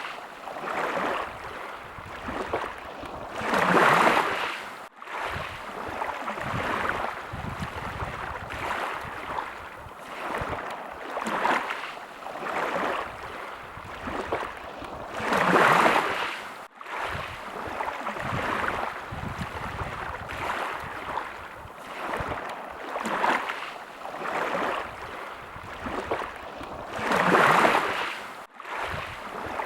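Sea waves washing in, a noisy swell and ebb every few seconds, with a bigger wave about every twelve seconds. The sound drops out for an instant just after each bigger wave.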